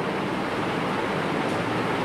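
Steady rushing background noise with no speech.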